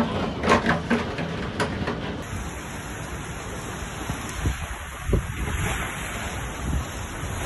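Hailstorm: hailstones and rain pelting down in a dense, steady hiss, with sharp individual hits in the first couple of seconds.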